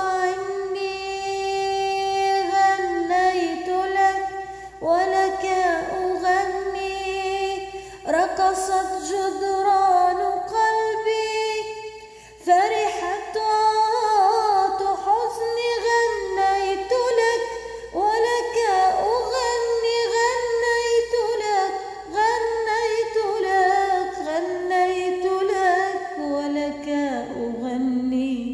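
A woman's voice singing unaccompanied in Arabic tarab style: long held and ornamented notes with vibrato, a brief breath about twelve seconds in, then closing on a lower note that fades out at the end.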